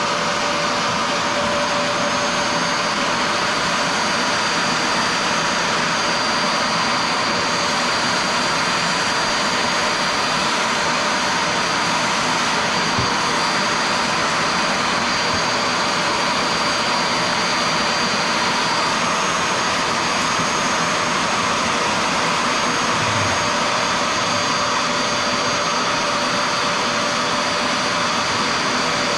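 Bissell SpotClean portable carpet cleaner's motor running steadily, a loud rushing with a high whine, as it sucks cleaning solution back up out of carpet. The whine shifts slightly in pitch about two-thirds of the way through.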